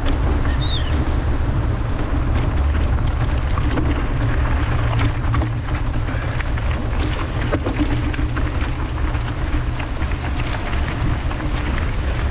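Mountain bike in motion heard through a bike- or rider-mounted camera: wind buffeting the microphone as a loud, steady low rumble, with scattered clicks and knocks from the bike.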